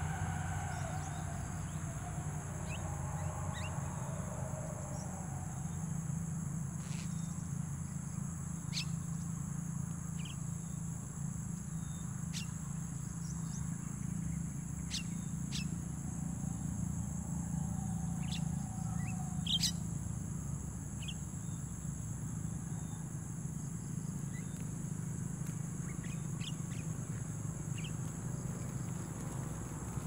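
Open-field ambience: a steady high-pitched insect drone with scattered short bird chirps throughout, over a low steady rumble. A few drawn-out calls are heard in the first few seconds.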